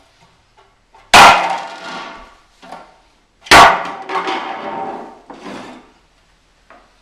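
A foot stamping hard on an unbreakable food display tray lying on a timber floor: two loud smacks about two and a half seconds apart, each followed by the tray clattering as it settles. A few lighter knocks follow as the tray is shifted.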